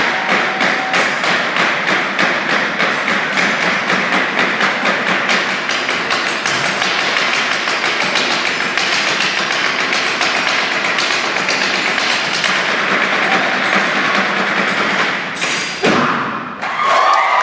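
Stomp-style percussion: several performers beating a fast, steady rhythm with sticks on a wooden tabletop. It ends in one loud unison hit about a second and a half before the end, followed by crowd cheering.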